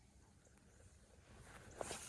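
Near silence: faint low outdoor background with a single soft click or knock near the end.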